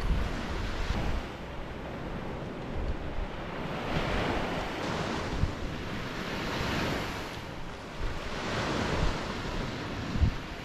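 Waves breaking and washing up the shore in slow swells every few seconds, with wind buffeting the microphone.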